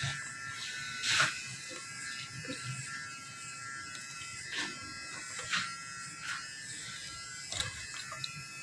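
Electric hair clipper running with a steady buzz, with a few short clicks and knocks, the loudest about a second in.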